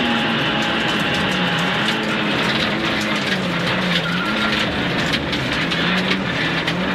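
Rally car engine heard from inside the cabin at speed on a gravel stage, its note falling and rising several times as the revs change, over a steady rush of tyre and road noise. Many short ticks of gravel striking the car run through it.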